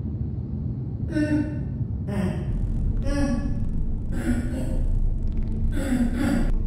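Five short wordless vocal sounds from a character, each about half a second long, over a steady low rumbling drone.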